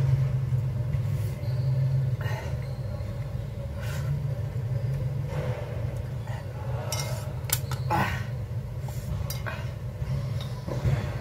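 Chopsticks clicking against a plate with eating noises, over a steady low hum; a quick run of clicks comes around the middle.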